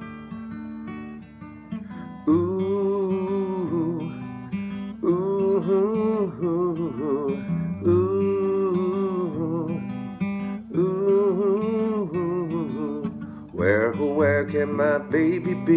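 Acoustic guitar strummed as a song introduction. From about two seconds in, a wordless vocal melody of long held notes with some wavering runs over it.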